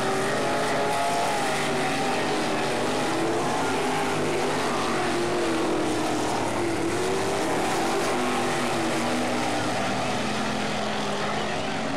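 Sprint car engine running hard on a dirt oval, its pitch rising and falling over and over as the car laps.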